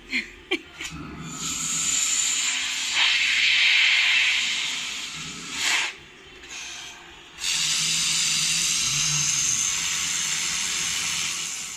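Philips bagless vacuum cleaner running with a steady hiss of suction, which changes level as it goes, with a few clicks near the start and a brief drop about six seconds in.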